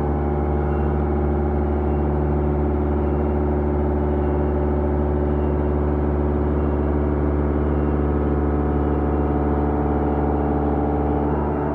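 CNC milling cutter cutting a metal block: a steady ringing hum of several held tones while the cutter is in the cut, dropping away near the end.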